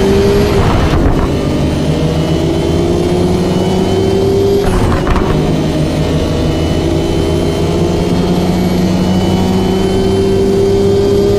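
Nissan Skyline GT-R R34's twin-turbo straight-six accelerating hard, its pitch climbing steadily through long pulls. The pulls are broken by upshifts about one second in, about five seconds in, and again at the end.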